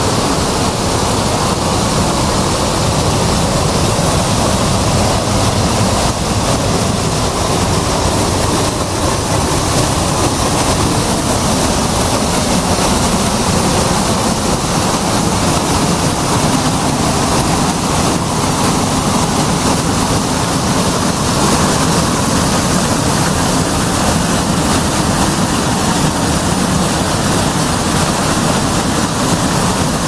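Wide curtain waterfall pouring over a rock ledge into a churning pool, heard close up: a loud, steady rush of falling water.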